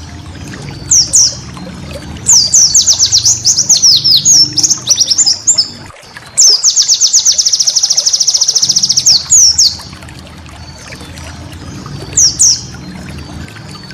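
A white-eye (pleci) singing. Scattered high chirps give way to a fast, varied run of notes, then a long, even rapid trill in the middle, then a few more chirps. A low steady hum runs underneath and drops out during the trill.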